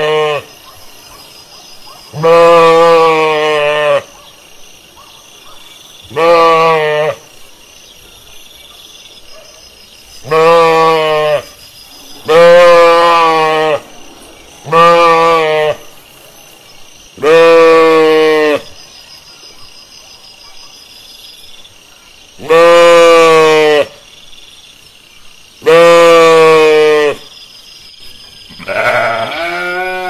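Sheep bleating: a run of about ten long, quavering baas a few seconds apart, most at the same low pitch, the last one near the end higher and shakier.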